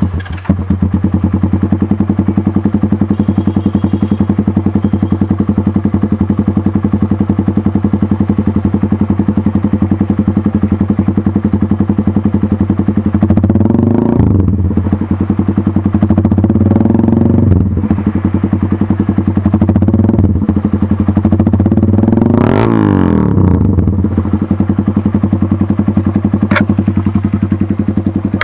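Keeway RKS 150 motorcycle engine running through an SC Project open pipe with no silencer, idling loudly with a steady exhaust beat. It is revved up and back down several times in the second half.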